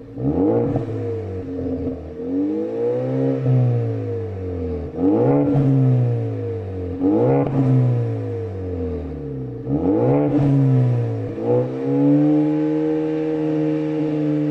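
Ford Focus ST's turbocharged 2.0 L four-cylinder EcoBoost engine revved through a Borla Ford Performance exhaust: several quick blips, each rising sharply and falling back, before it settles to a steady idle near the end.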